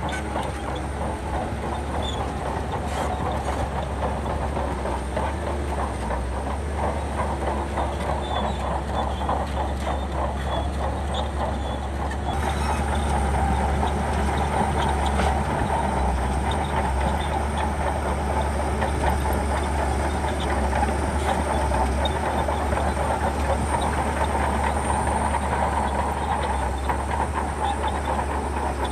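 Shantui bulldozer working: its diesel engine runs steadily under the rapid clatter of steel tracks, becoming a little louder about twelve seconds in.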